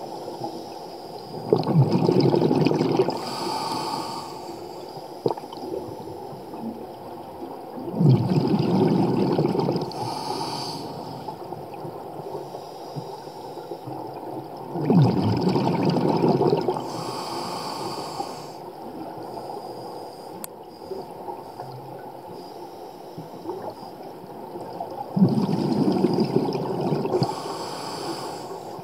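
Scuba diver breathing through a regulator underwater: four breaths, about seven seconds apart. Each is a burst of exhaled bubbles rumbling for about two seconds, followed by a short hiss.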